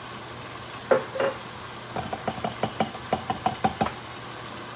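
Small kitchen items being handled at the counter: two knocks about a second in, then a quick run of about a dozen short, lightly ringing clicks. Vegetables sizzle faintly in the frying pan underneath.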